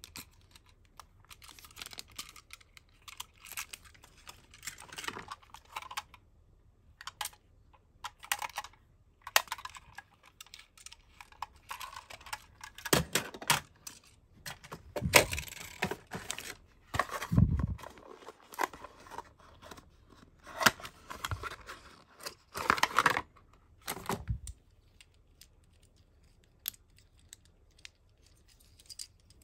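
Clear plastic packaging bag crinkling, rustling and tearing as it is handled, with scattered sharp clicks of small plastic parts; it comes in irregular bursts and dies down over the last few seconds.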